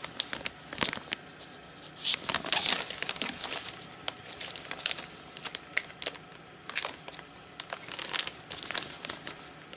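Clear plastic card-pocket sleeve pages crinkling and rustling as they are handled and turned, in irregular bursts, loudest about two to three and a half seconds in.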